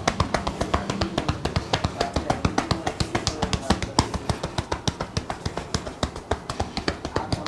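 Barber's hands rapidly slapping and tapping on a customer's head in rhythmic massage strokes, about eight sharp smacks a second, uneven in strength.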